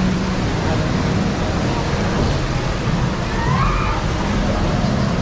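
Steady rush of water moving through a log flume ride channel, a constant noisy wash. A short tone rises and falls about three and a half seconds in.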